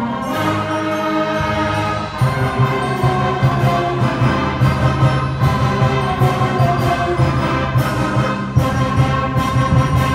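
Student concert band of saxophones and brass playing loudly, holding chords; about two seconds in, a fast pulsing low part comes in underneath.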